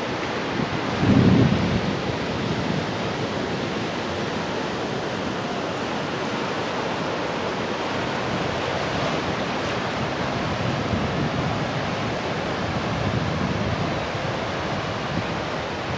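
Sea surf breaking and washing over a rocky shore as a steady rush. Wind buffets the microphone with low rumbling gusts, strongest about a second in.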